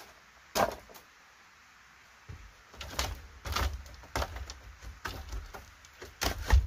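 Split bamboo wall slats knocking and clattering as they are pressed into place against a bamboo base pole: a single sharp knock, then a run of uneven knocks with low thuds, the loudest near the end.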